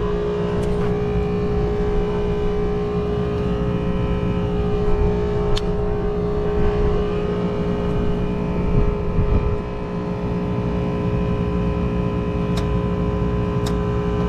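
Steady hum and drone of rooftop air-conditioning equipment running, with a few faint sharp clicks.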